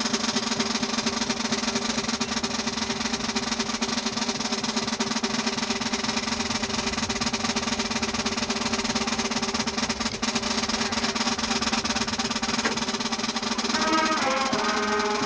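Elementary school band playing. A dense, steady sound with held low notes lasts most of the time, then near the end a melody of short wind-instrument notes begins.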